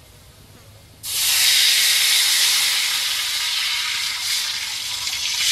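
Vinegar poured from a jug into hot oil and fried lemongrass in a wok, hissing and sizzling loudly. The hiss starts suddenly about a second in and eases off slowly as the pour continues.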